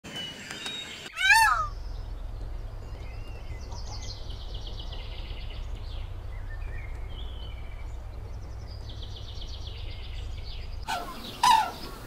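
Bird calls: one loud call about a second in, then high, rapid chirping trills over a steady low rumble, and from near the end a series of loud repeated calls.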